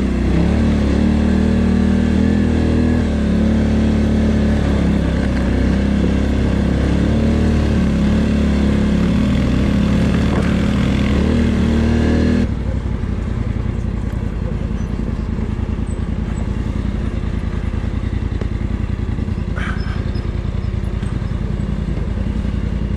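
2019 Polaris Sportsman XP 1000 ATV's twin-cylinder engine running on the trail, its pitch rising and falling with the throttle. About twelve seconds in it drops suddenly to a lower, pulsing run at low revs on a very steep off-camber descent.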